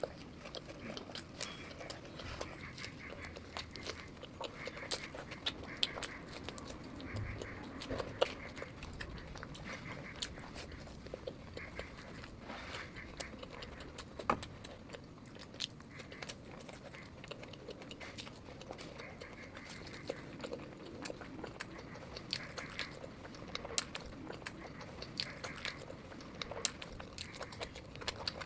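Close-miked eating sounds of someone eating street food: chewing with wet mouth clicks and smacks, many small irregular clicks with no steady rhythm.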